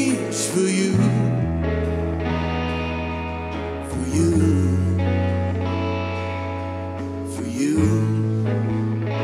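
Live rock band playing an instrumental passage: electric guitars with wavering, bent lead notes over long held bass guitar notes that change every few seconds.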